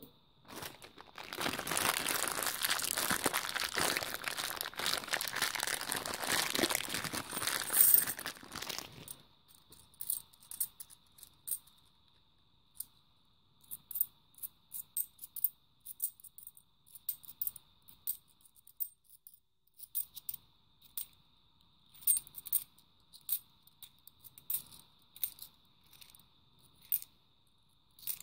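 Plastic crinkling and rustling for about eight seconds, then UK 50p coins clicking against each other in the hand as they are thumbed through, in short separate clicks.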